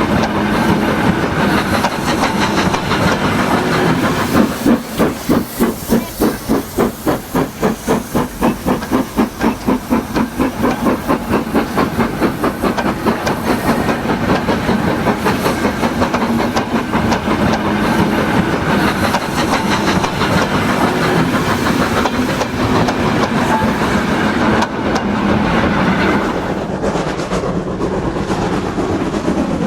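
Steam locomotive running, with a hiss of steam and rhythmic exhaust chuffs, about three a second, that stand out most strongly from about four to twelve seconds in.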